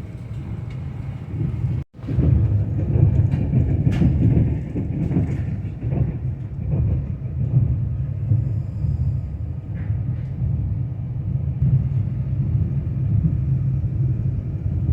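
Passenger train running on the rails, its steady low rumble heard from inside the carriage, with a few light clicks. The sound cuts out for a moment about two seconds in.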